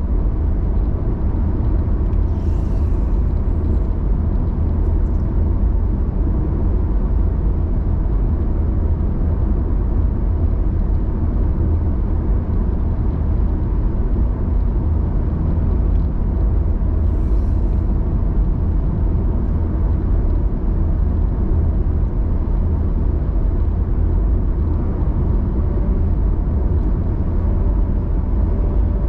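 Steady low rumble of road and engine noise from a car cruising at highway speed, heard inside the cabin. Two faint brief hisses rise over it, a couple of seconds in and again a little past halfway.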